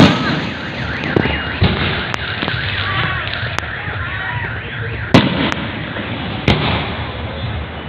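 Aerial fireworks bursting, about nine sharp bangs at uneven intervals, the loudest right at the start and about five seconds in, over a continuous background din.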